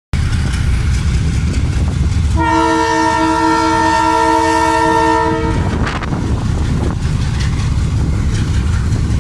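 Diesel locomotive's engine rumbling as it crosses a street, with its multi-note air horn sounded in one long chord of about three seconds, starting a couple of seconds in, as a warning at the level crossing.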